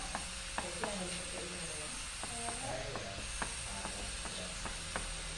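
About a dozen light, sharp clicks and taps at irregular intervals, over a steady low background hum.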